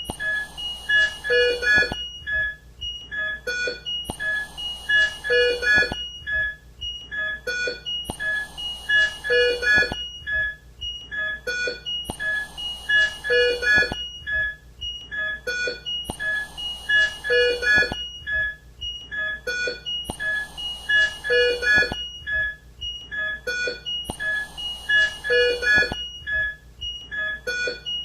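ICU monitoring equipment beeping: short electronic beeps and alarm tones at several pitches, with a brief airy hiss in each cycle. The whole sequence repeats every four seconds.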